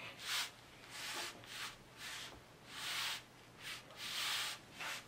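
Hands rubbing and pressing a backing board down onto glued foam core: a series of short, uneven rubbing strokes.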